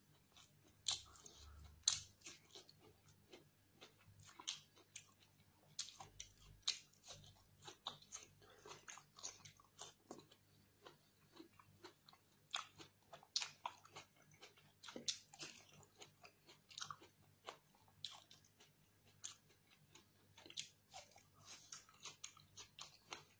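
A person eating close to the microphone: irregular chewing, biting and wet mouth clicks, with a bite into a fresh tomato slice near the end.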